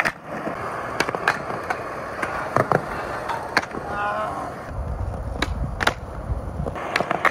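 Skateboard wheels rolling on smooth concrete, with several sharp clacks of the board's tail popping and the board landing. A deeper rumble comes in for about two seconds past the middle.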